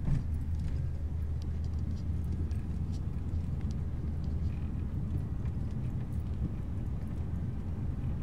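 Vehicle engine and road noise heard from inside the cab while driving, a steady low rumble, with a brief thump right at the start and a few faint ticks.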